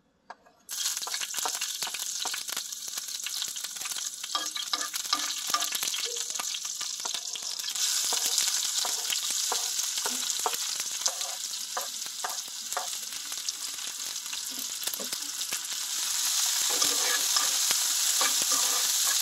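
Sliced red onions and green chilies sizzling in hot oil in a metal frying pan, with a metal spoon clicking and scraping against the pan as they are stirred. The sizzle starts suddenly a little under a second in and gets louder about halfway through and again near the end.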